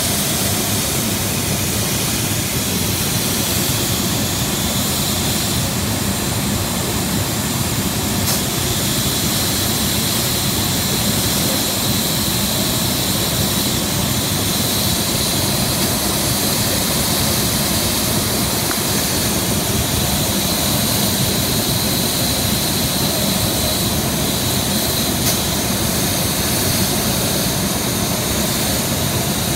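Large smoke machine with a fan turbine running at half power, blowing out a continuous jet of fog: a steady rushing hiss with a thin high whine on top.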